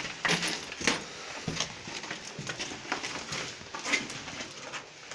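Footsteps at walking pace, a step about every half second.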